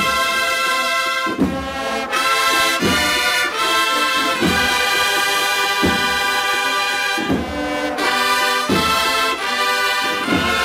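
A large Andalusian brass band of trumpets, flugelhorns, baritones and tubas playing a processional march in full, sustained chords over a slow, steady beat.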